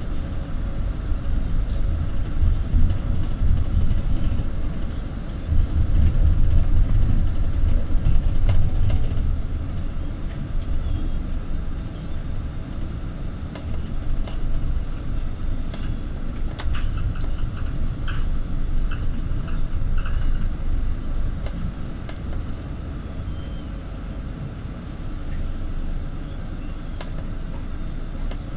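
A moving vehicle: a steady low rumble of engine and road noise, swelling a little for a few seconds about a fifth of the way in, with scattered light clicks and rattles.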